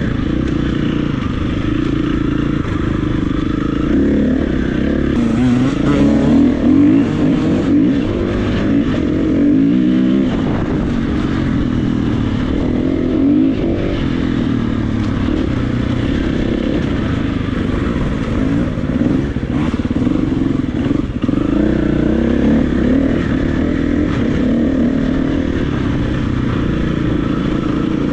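KTM 350 EXC-F's single-cylinder four-stroke engine pulling on an off-road ride, revving up and dropping back again and again as the throttle opens and closes, with scattered short knocks from the bike over rough ground.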